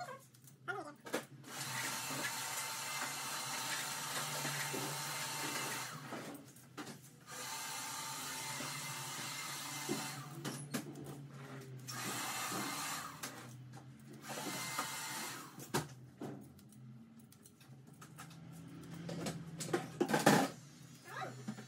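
A small electric motor running in stretches of a few seconds that start and stop several times, with short clicks in the gaps and a louder cluster of clicks near the end.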